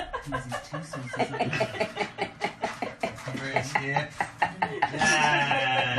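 A person's voice talking, the words not made out, getting louder about five seconds in.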